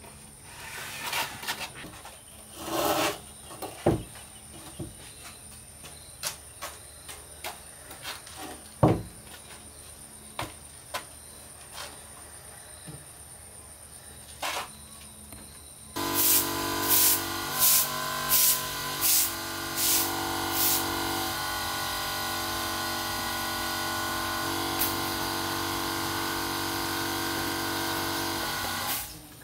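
Heavy wooden furniture being shifted and handled on a concrete floor, with scattered knocks and short scrapes. About halfway a louder, steady sound of several held tones starts suddenly, with rhythmic high hissing strokes at first, and it cuts off abruptly near the end.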